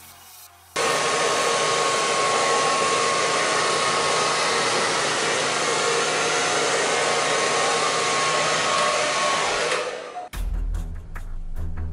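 Hair dryer switched on about a second in, blowing steadily with a thin whine, then switched off near the end, where background music with a beat comes in.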